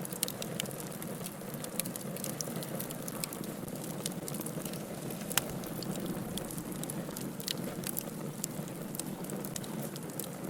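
Wood campfire burning: a steady low rush of flame with many sharp crackles and pops from the burning wood, one louder pop about five seconds in.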